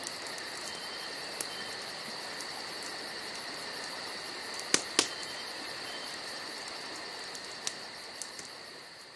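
Night ambience sound effect of crickets chirping steadily, with a few sharp snaps, two of them close together about halfway through. It fades out near the end.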